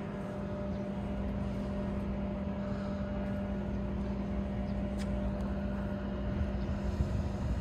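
A motor vehicle's engine running with a steady low hum over a rumble. It grows slightly louder toward the end and fades just after.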